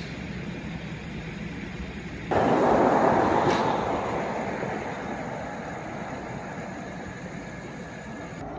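Freight train boxcars rolling past with a steady rumble of wheels on rail. About two seconds in, a sudden louder rushing noise starts and then fades slowly over the next few seconds.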